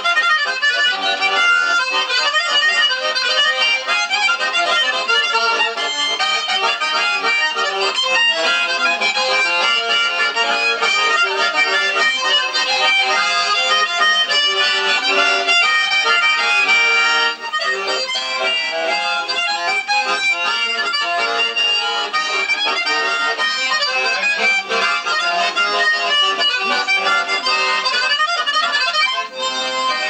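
Button accordion playing a tune with chords, heard thin through a television's speaker with no bass, with a brief dip about seventeen seconds in.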